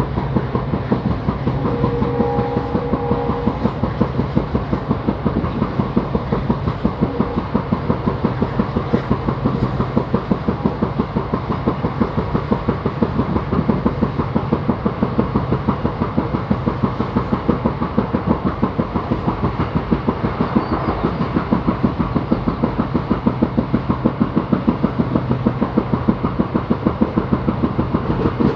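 Wheels of Indian Railways ICF passenger coaches running over rail joints at speed: a fast, even clickety-clack that keeps up without a break, over a steady low running hum.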